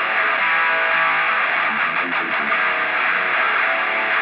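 Background rock music with a distorted electric guitar, sounding muffled and thin in the treble.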